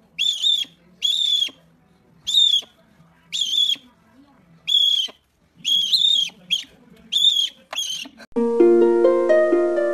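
An owl giving a series of short, high, screechy calls, about ten in all, some in quick pairs. Plucked harp music comes in near the end.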